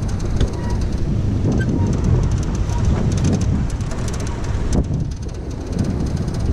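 Wind buffeting the microphone: an irregular low rumble that rises and falls in gusts.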